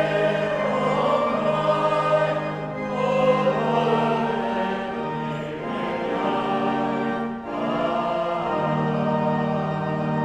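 A choir singing with organ accompaniment: held chords sound beneath wavering voice lines that move every second or two.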